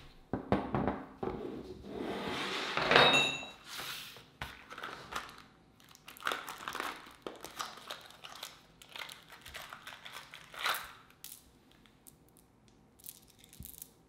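Packaging being opened by hand: loud crinkling and tearing for the first few seconds, then lighter rustles and sharp clicks as a small cardboard box of skateboard mounting bolts is pried open, with a few small light ticks near the end.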